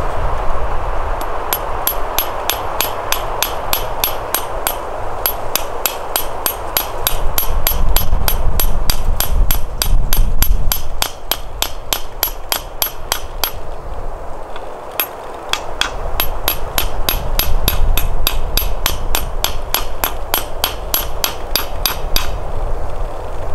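Small hand hammer tapping in quick, even blows, about four a second, in two long runs with a short pause between them.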